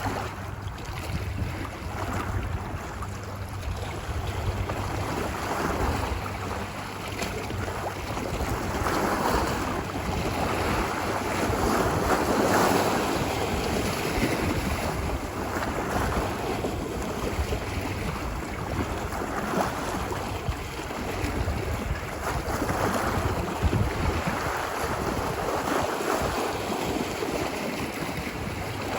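Ocean waves washing ashore on a beach, a continuous wash of surf that swells and falls back every few seconds, over a low rumble of wind.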